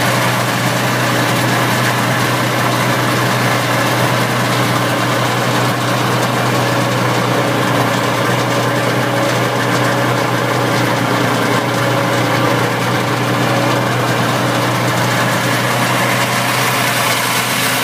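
1973 Ski-Doo Elite snowmobile's two-stroke engine idling steadily, an even hum with no revving.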